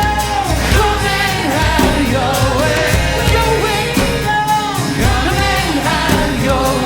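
Worship band music with a singer's voice gliding over it.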